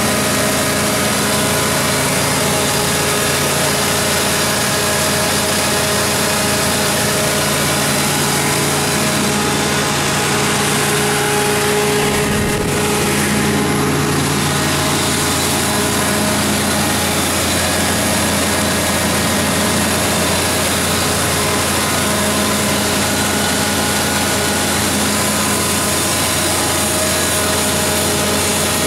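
Onan/Cummins 100 kW generator set's Ford LSG-875 V8 gas engine running steadily at constant speed.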